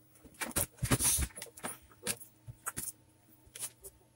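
Handling noise: scattered light clicks, taps and rustles, most of them in the first second and a half, then a few sparse ticks, as multimeter test probes are moved about on a TV's main circuit board.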